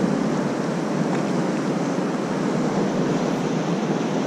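Fast-flowing river current rushing over rocks, a steady even rush of water.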